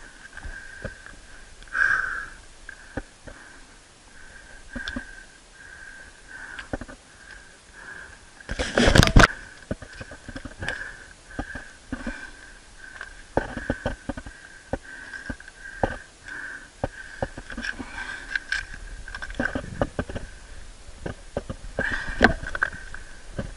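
A climber scrambling over rock and scrub: scattered scuffs, knocks and contact noises from hands and feet on limestone and brush, with one loud rustle or bump about nine seconds in. A steady high-pitched hum runs underneath.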